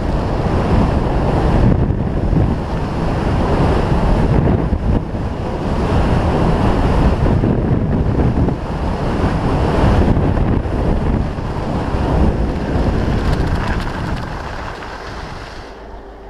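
Wind buffeting a GoPro's microphone during a fast ski run, a loud rushing roar mixed with the hiss of skis on hard snow. It dies down near the end as the run slows.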